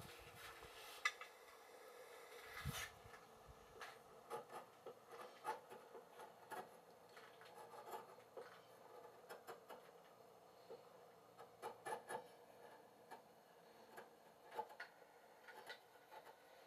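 Chisel paring wood at the edge of a wooden block: faint, short scraping strokes and clicks at irregular intervals, one or two a second, over a faint steady hum.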